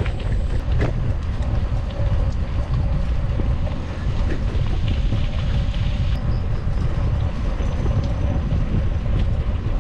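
Wind rushing over the microphone while riding a bicycle: a steady, loud, low rumble.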